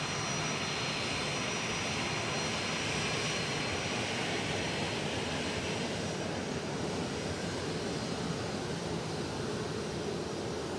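Boeing 737 jet's twin turbofan engines running at taxi power, a steady rushing noise with thin high-pitched whining tones. The upper part of the noise eases a little about halfway through, as the plane comes to a stop.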